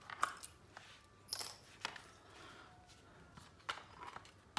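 Scattered clicks and knocks of hard plastic from a Black & Decker 12V cordless impact driver being handled and its battery pack fitted to the handle, with sharper clicks about a quarter second in, around a second and a half in, and near four seconds in.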